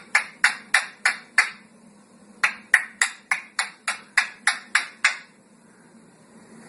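A parrot making a rapid run of sharp, short sounds, about four a second, in two bursts with a short pause between them, stopping about five seconds in.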